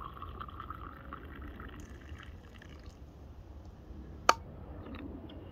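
A hot brew poured from a steel vacuum flask into a mug, the filling sound rising slightly in pitch and dying away about two seconds in. About four seconds in, a single sharp click as the flask's lid is screwed back on.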